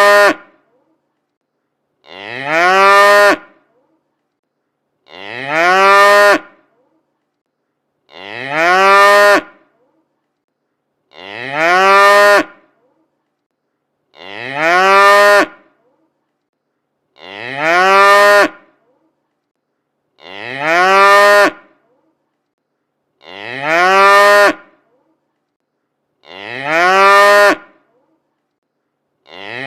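A cow mooing: one call of about a second and a half, rising slightly in pitch at its start, repeated identically about every three seconds, about ten times, with silence in between. The copies are exact, which marks a single moo recording looped.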